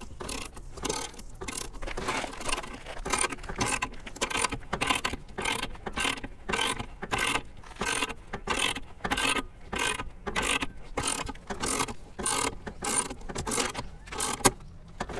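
Ratcheting jack wrench cranking a car jack's screw, worked back and forth in strokes about twice a second, each stroke a short burst of ratchet-pawl clicking.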